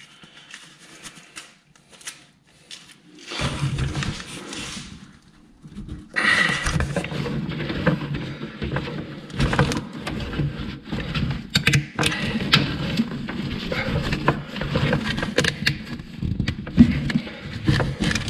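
Scraping and rustling with many small clicks and knocks, quiet at first and dense from about six seconds in: a Jeep Wrangler YJ's replacement collapsible steering shaft being worked up onto the steering column shaft by gloved hands.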